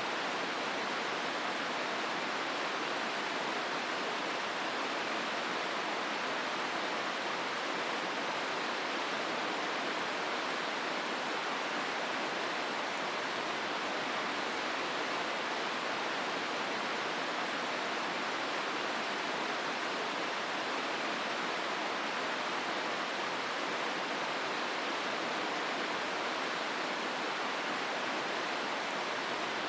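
Hozu River water rushing steadily over the rocks of its gorge, an even, unbroken hiss of flowing water.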